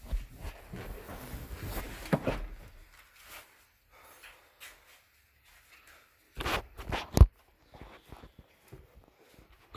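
Rustling and handling noises with light knocks, then a few clunks about six and a half seconds in, ending in one sharp, loud knock.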